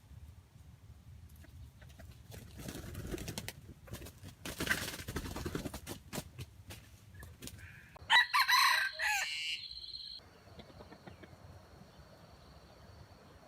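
A wild junglefowl rooster crows once, loud and short, about eight seconds in, after several seconds of rustling and scuffling. A faint steady high-pitched tone runs on after the crow.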